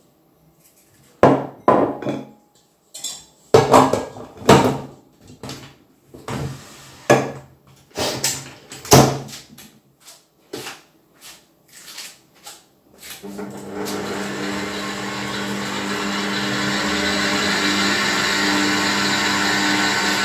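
Knocks and clatters against a stainless-steel mixing bowl and a stand mixer as it is loaded and its head lowered. About 13 seconds in, the stand mixer starts whisking eggs and sugar, a steady hum that grows slightly louder.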